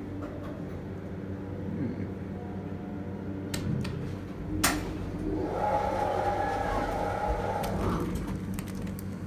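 Inside a hydraulic elevator car, a steady hum from the cab's fan sounds under several sharp button clicks. The loudest click comes about halfway, and is followed by a few seconds of a higher, steady tone.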